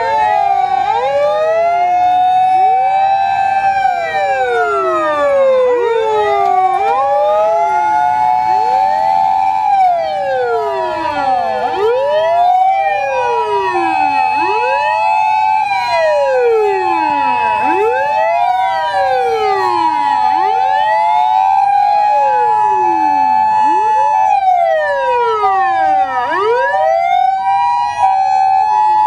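Several Japanese fire engines' wailing sirens overlap, rising and falling out of step with one another as the vehicles drive past. Partway through, a two-tone hi-lo siren joins them, alternating steadily between two notes, typical of a Japanese ambulance.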